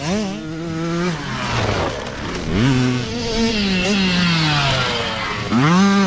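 Small youth mini dirt bikes racing past one after another, engines revving up and falling in pitch as each rider throttles and backs off. The loudest pass comes near the end.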